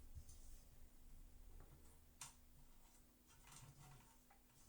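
Near silence: room tone with a few faint, sharp clicks of small parts being handled.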